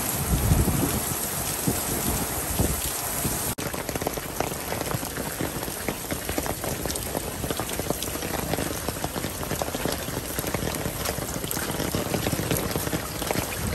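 Heavy rain pouring down in a storm, a dense steady hiss full of close drop impacts, with a low rumble in the first second. The sound cuts out for an instant about three and a half seconds in.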